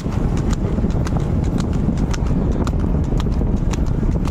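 Hooves of a water buffalo bull trotting on an asphalt road while pulling a light two-wheeled cart: a quick, irregular run of sharp hoofbeats, several a second, over a steady low rumble.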